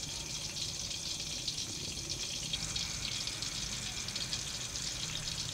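Hot cooking oil sizzling steadily, a continuous high hiss with fine crackles.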